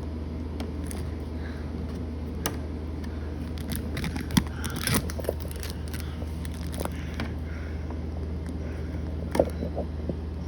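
Small screwdriver clicking and scraping against a light switch plate screw that won't catch in its thread, in scattered short clicks over a steady low hum.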